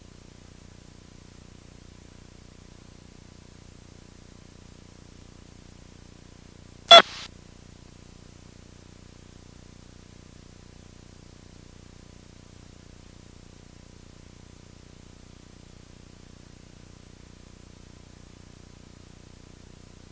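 Faint steady electrical hiss and hum, broken once by a single sharp click about seven seconds in.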